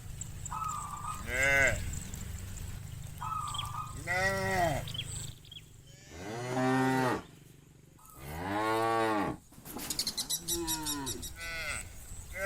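Cattle mooing, one call after another: about five moos from different animals, each rising then falling in pitch. Two long, deep ones come in the middle, the longest lasting about a second and a half.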